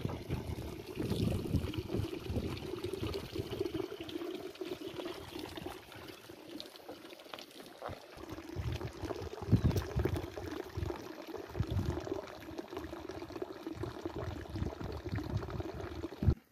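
Water being poured from a plastic bottle over a cow's back, a steady splashing pour, with dull low thumps now and then.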